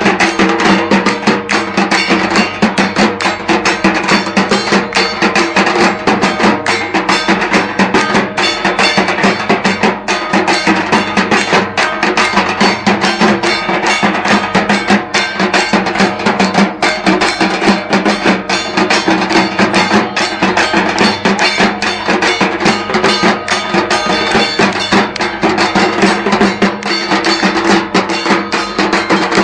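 Music carried by fast, steady percussion: a dense run of drum strokes over a sustained pitched backing.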